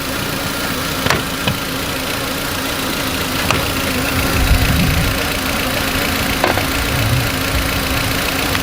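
Volkswagen Beetle engine idling steadily, a rough idle caused by a vacuum leak at the brake booster. A few sharp clicks and knocks sound over it, with a brief low swell in the engine note about halfway through.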